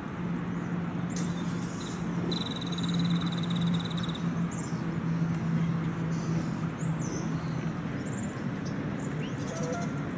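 Outdoor ambience: a steady low drone over rumbling background noise, with a few short high bird chirps.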